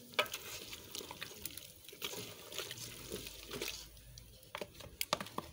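Thick green purée of leek, onion and chili pouring and dribbling from a plastic tub into a metal pot of meat and tomatoes, with a few light clicks.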